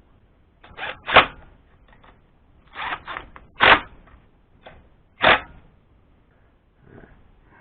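Sharp clicks and clacks of parts and tools being handled while charging coils are fitted to a small engine: about half a dozen short knocks at uneven intervals, the loudest near the start, in the middle and about two thirds through.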